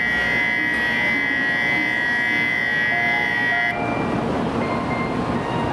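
Electronic departure bell ringing steadily on a Shinkansen platform, cutting off abruptly about four seconds in. A steady rushing hum from the standing train and platform continues after it, with a few faint short tones.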